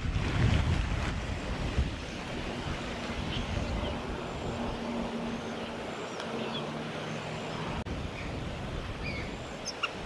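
Wind buffeting the microphone, a steady low rumble that is heaviest in the first couple of seconds. A few faint, short, high bird chirps are scattered through it, and a faint low hum sits in the middle.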